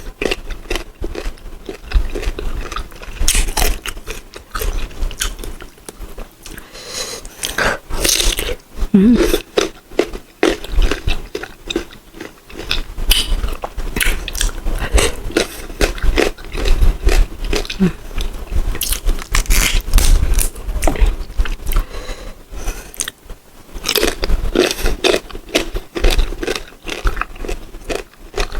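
Biting into and chewing crisp, unripe green mango, with loud, irregular crunches throughout.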